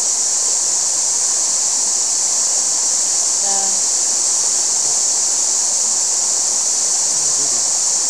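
Waterfall rushing: a loud, steady hiss of falling water that sits mostly in the upper range.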